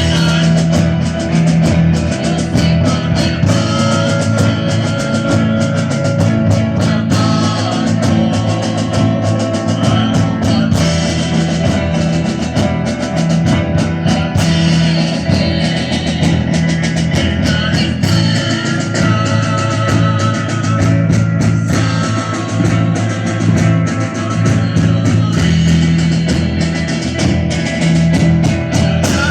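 Rock music with electric guitar, bass and drum kit, and some singing.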